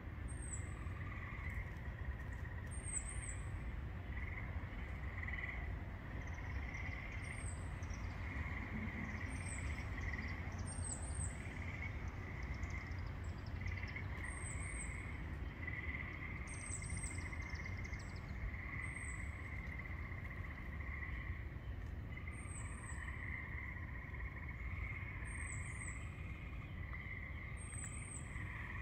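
Spring woodland evening chorus: a steady trilling chorus swelling and fading every second or two, with a bird repeating short, high, falling chirps, over a low rumble.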